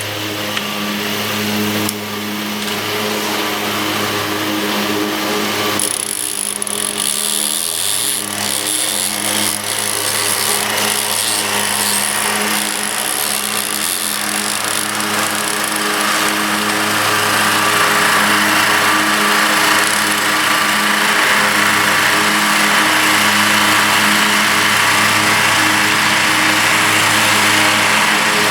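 A vehicle engine running steadily, with a hissing noise that grows louder about two-thirds of the way through.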